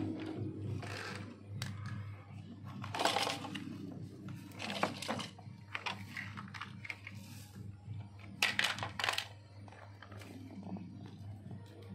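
Toy cars and plastic toy trucks clicking and knocking against each other and rattling among foam balls, in scattered sharp clicks and short rattles, the loudest about three seconds in and again near nine seconds, over a low steady hum.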